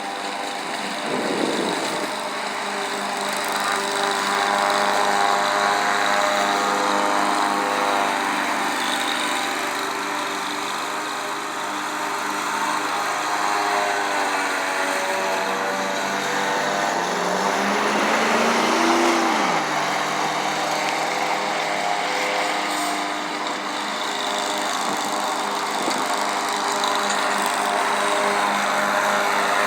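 Country Clipper joystick-steered riding mower running steadily while mowing. Its engine drone rises in pitch for a few seconds past the middle, then drops back sharply.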